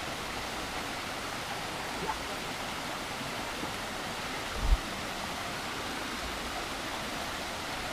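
Shallow stream running over rocks, a steady hiss of flowing water that is not very strong. A brief low thump about four and a half seconds in.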